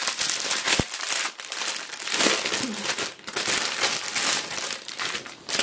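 Plastic bags of diamond-painting drills crinkling and rustling as they are handled, with a sharp click about a second in.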